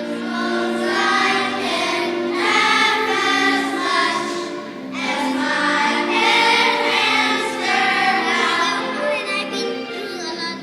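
Children's choir singing a song, sustaining notes in long phrases with a short breath about five seconds in.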